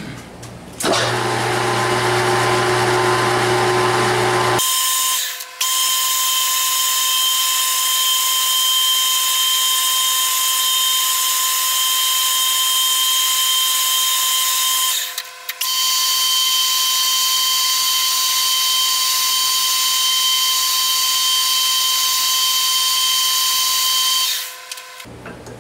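Metal lathe turning down the end of a steel drill rod, the cutting tool taking off chips. A lower hum for the first few seconds gives way to a steady high-pitched whine, which drops out briefly twice before stopping near the end.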